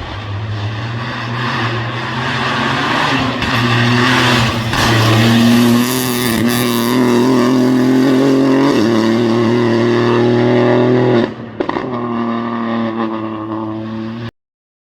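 Rally car engine running hard under load, its pitch climbing and dropping back at gear changes about five, nine and eleven seconds in, then cutting off suddenly near the end.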